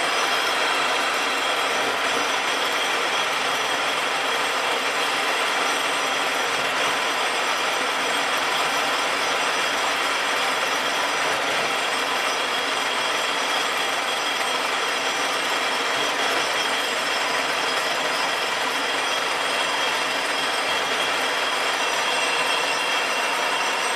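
Davenport Model B five-spindle automatic screw machine running steadily, a constant dense mechanical sound from its spindles, cams and tool slides.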